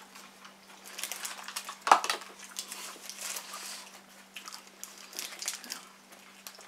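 Close-up eating sounds: chewing and biting into burgers, with crinkling of paper burger wrappers and short crackles scattered throughout. A sharp click about two seconds in is the loudest sound, and a steady low hum runs underneath.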